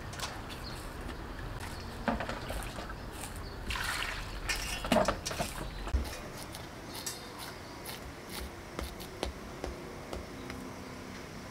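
Fresh corn kernels scraped off the cob with a small hand-held metal scraper in short, irregular strokes, the shredded kernels dropping onto a steel tray. The strokes are busiest and loudest about four to six seconds in, then lighter and more spaced out.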